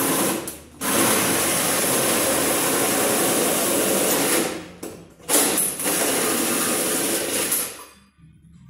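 Cordless drill driving a 98 mm hole saw through the steel sheet metal of a vehicle's front fender, cutting the hole for a snorkel. It runs in two long loud runs, stopping briefly about four and a half seconds in and cutting off near the end.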